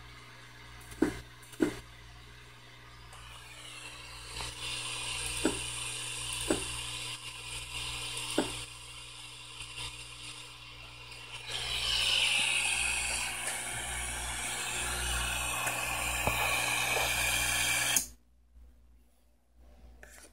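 A few sharp single clicks, then the homemade pick-and-place machine built from an old 3D printer runs with a steady hiss and a wavering whine over a low hum. The machine noise grows louder about twelve seconds in and cuts off suddenly near the end.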